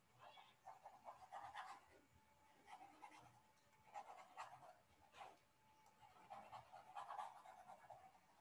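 Near silence, with faint short scratchy strokes of a stylus writing on a tablet screen.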